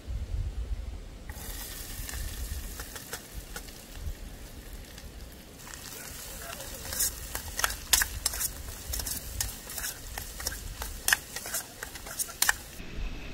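Chicken with onions and spices frying in a pot on a camping gas stove: a steady sizzle starts about a second in. From about halfway, a spatula scrapes and clicks against the pot in quick repeated strokes as it is stirred.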